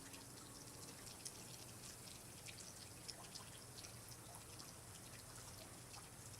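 Faint dripping and trickling water: irregular small drips and ticks over a quiet hiss.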